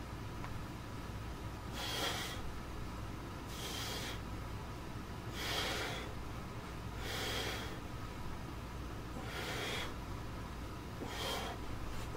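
A person's hard, forceful breaths during a workout: six short puffs of breath, one every second and a half to two seconds.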